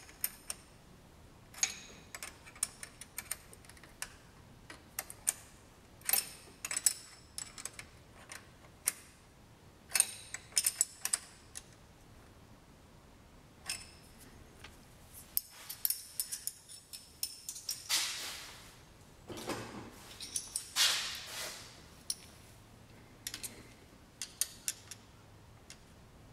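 Small metal clicks and clinks of a wrench turning the adjusting nut on a Weber 44 DCNF carburetor throttle linkage rod, irregular and spread throughout. About two-thirds of the way through come two longer scraping sounds, each about a second long.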